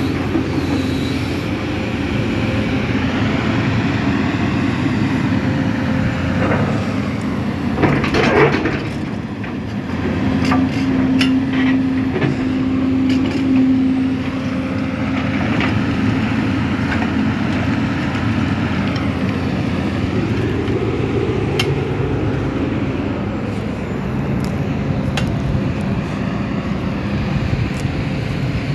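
Sumitomo SH300 hydraulic excavator working: its diesel engine runs steadily under load while the hydraulics whine, rising and falling as it digs and swings, with scattered knocks from the bucket and a louder scraping rush about eight seconds in.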